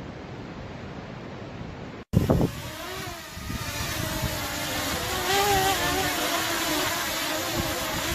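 A steady rush of wind noise, then, after a brief cut-out about two seconds in, a small quadcopter drone hovering close overhead. Its propellers give a steady buzzing whine that wavers slightly in pitch, with wind on the microphone.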